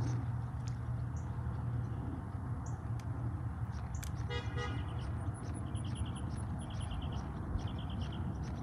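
A car horn gives one short toot about four seconds in, over a steady low rumble and faint repeated high chirps.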